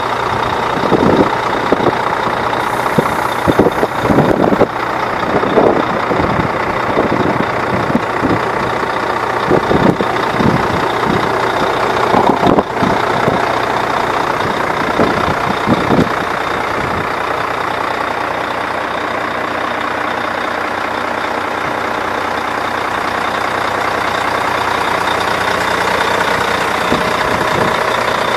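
Volvo FM12 truck's 12-litre six-cylinder diesel idling steadily, with irregular low thumps through roughly the first half.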